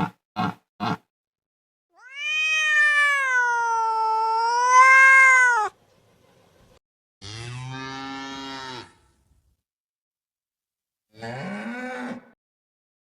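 A series of animal calls: short sharp clicks at the start, then one long pitched call that wavers up and down, then a lower buzzy call, and a short call rising in pitch near the end.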